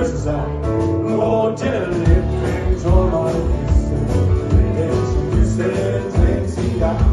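Live band playing a song, with a steady drum beat, bass and pitched melody instruments.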